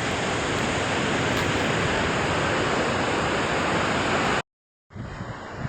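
Steady outdoor rushing noise, like surf and wind. It cuts out for about half a second near the end, then comes back quieter, with low rumbles of wind buffeting the microphone.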